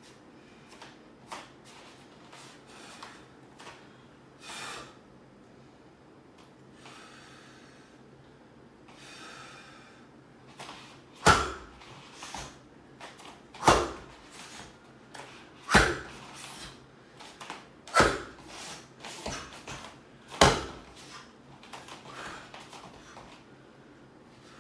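Five sharp thumps, about two seconds apart in the second half, from forceful explosive (fajin) moves of a Chen-style tai chi form: stamping feet on a floor mat and snapping clothing. Fainter movement sounds fill the first half.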